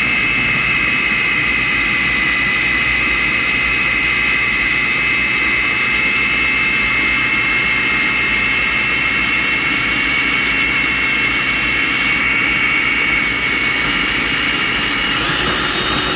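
Hamilton Beach food processor running steadily, its blade chopping onion, garlic and pepper into a wet paste, with a high, even motor whine.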